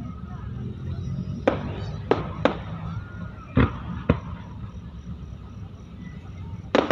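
Fireworks shells bursting: six sharp bangs at irregular intervals over a steady low background rumble.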